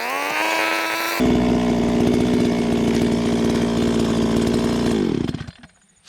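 Chainsaw revving up, then running at a steady pitch while cutting through the trunk of a persimmon tree, dying away about five seconds in.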